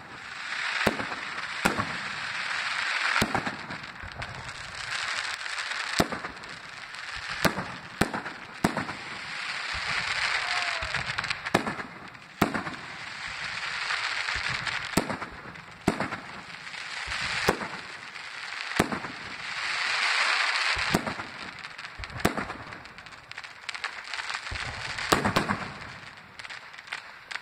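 Fireworks display: aerial shells bursting in a run of sharp bangs about a second apart. Several spells of rushing noise lasting a few seconds each come between them.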